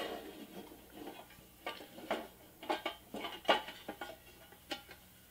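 Light metallic clicks and taps of a pressed-steel toy truck body part being slid on and its tabs seated in their slots, about a dozen irregular clicks.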